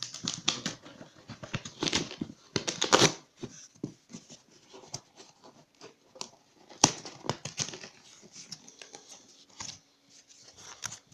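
Cardboard shipping box being worked open by hand: packing tape tearing and cardboard scraping and rustling in irregular bursts, with one sharp knock about two-thirds of the way through.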